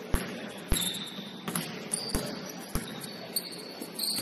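A basketball bouncing on a court floor about five times, irregularly spaced. Short high-pitched sneaker squeaks come and go between the bounces.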